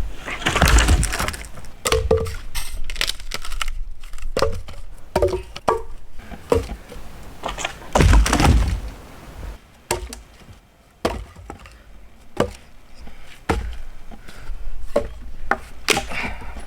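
Dead small maple sticks being broken up for firewood: a run of irregular cracks and knocks of wood, the loudest about a second in and about eight seconds in.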